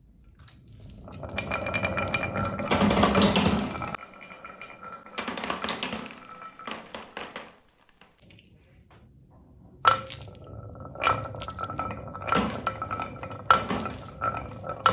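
Marbles rolling and clattering down a marble run track, building to a dense rattle, then a second shorter run. Near the end comes a quick series of sharp clicks, each leaving a short ringing tone, as marbles strike a chime-like piece of the track.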